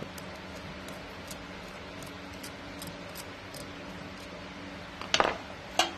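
Screwdriver working in the idle-jet passage of a Honda N600 carburetor's aluminum body, with faint ticking as it turns. Two sharp metallic clinks come near the end, over a steady low hum.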